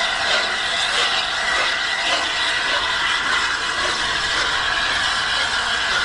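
LNER A3 Pacific steam locomotive 60103 Flying Scotsman moving slowly and letting off steam, heard as a steady hiss.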